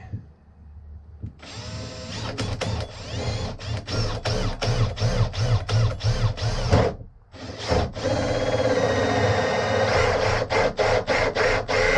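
Cordless drill driving a 32 mm hole saw through a vinyl-covered plywood board, starting about a second and a half in and running unevenly with many short catches as the teeth bite. It stops briefly near the middle, then starts again and cuts steadily.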